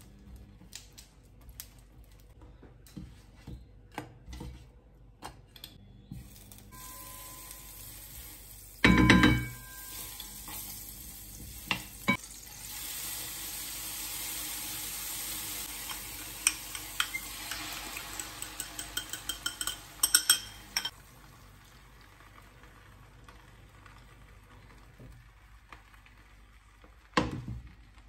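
Butter and grated cheese sizzling in a hot frying pan for several seconds in the middle, with quick ticking clicks toward the end of the sizzle. Light clicks and scrapes of handling at the pan surround it, with one loud knock about nine seconds in and another near the end.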